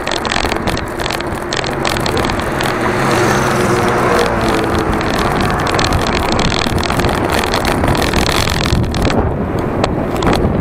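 Wind buffeting an SJ5000X action camera's microphone on a moving bicycle, a loud, steady rush mixed with road and traffic noise. A passing scooter's engine comes through about the middle.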